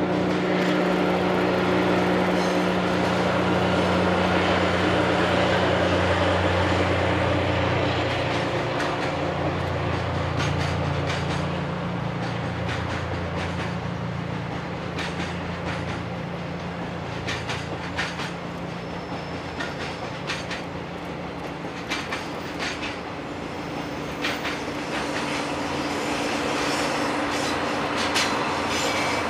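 JR DD51 diesel-hydraulic locomotive passing with a container freight train, its engines running with a steady drone. From about eight seconds in, the wagon wheels click over the rail joints, and near the end the engine drone of the second DD51 at the tail comes up again.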